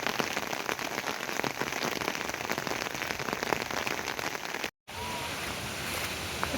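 Rain falling, many separate drops striking a surface. About four and a half seconds in it breaks off abruptly and gives way to a smoother, steadier hiss.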